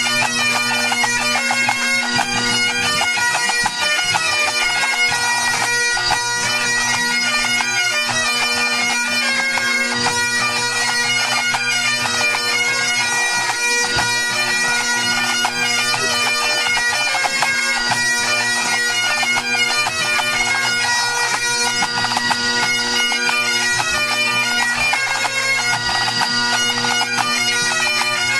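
Great Highland bagpipes of a pipe band sounding together at a tune-up: the drones hold one steady tone while the chanters run quickly through melody notes without a break.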